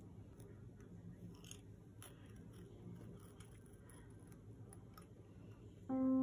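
Faint scratching and small ticks of a craft knife cutting out printed stickers from a paper sticker sheet, over a low steady hum. Piano music comes in just before the end.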